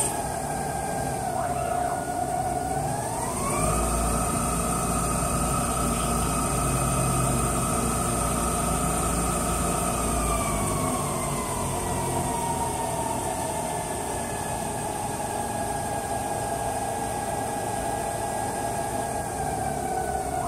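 CNC lathe turning a brass part under constant surface speed control: a drive whine that rises about three seconds in, holds, then falls slowly from about ten seconds on as the spindle speed follows the cutting diameter. A steady machining hum runs underneath.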